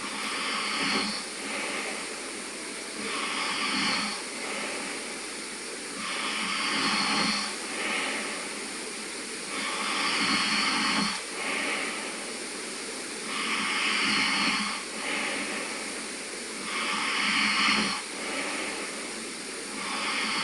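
A sleeping man snoring, with a noisy breath about every three and a half seconds.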